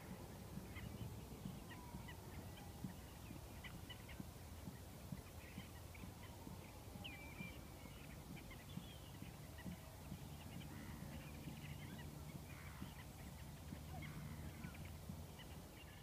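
A distant flock of waterbirds calling, many short high calls overlapping with a few lower sliding calls, over a low steady hum that comes in about ten seconds in.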